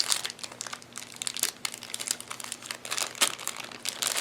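Plastic packaging crinkling and crackling in quick, irregular bursts as camera kit accessories are handled and unwrapped.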